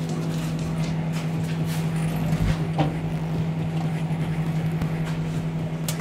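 Microwave oven switching on and running with a steady low hum, an LED light bulb inside it. A few faint clicks sound over the hum, with a sharper one near the end.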